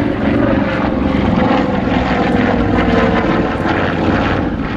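Avro 19 twin-engine propeller aircraft flying past overhead, its two Armstrong Siddeley Cheetah radial engines and propellers running steadily. The pitch falls slowly as it passes.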